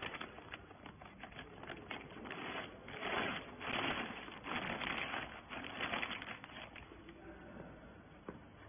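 Irregular clicking and rattling mixed with noisy rustling, busiest and loudest in the middle and fading toward the end.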